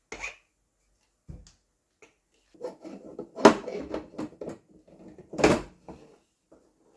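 Knocks and clatter of espresso gear being handled, with two loud sharp knocks about three and a half and five and a half seconds in.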